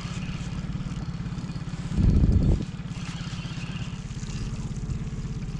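Boat outboard motor running steadily at trolling speed, a low, evenly pulsing engine note. There is a brief, louder low rumble about two seconds in.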